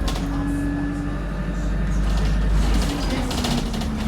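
Bus engine and road noise heard from inside the moving bus: a steady low drone that eases a little nearly three seconds in, with a thin high squeal over it and a high rattle later on.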